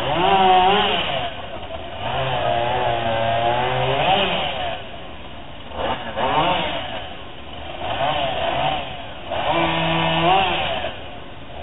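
An engine revving up and down in about five bursts of one to two seconds each, dropping back between them.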